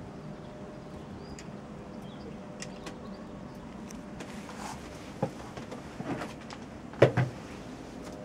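Steady outdoor background with faint bird chirps, broken by a few short knocks; the loudest is a double knock about seven seconds in. No helicopter rotor is heard.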